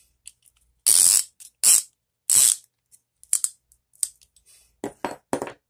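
Old-style piston ring compressor being worked around a piston: three loud, short metallic rasps, scattered small clicks, then three quick taps near the end.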